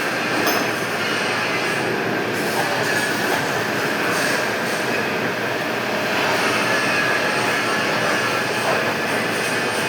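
Steady machine-shop noise with faint high-pitched metallic squeals, from metal-cutting machinery such as a lathe pipe cutter at work.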